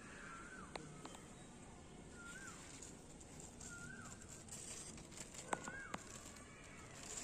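A bird repeating one short call that rises and falls, about every one and a half seconds, over faint high chirping. A few sharp clicks come near the middle.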